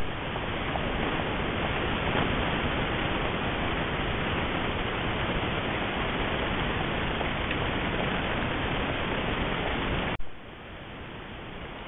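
Steady, even hiss from a trail camera's microphone and audio circuit, cutting in abruptly at the start of a recording. About ten seconds in, a click, then the hiss drops sharply to a much quieter level.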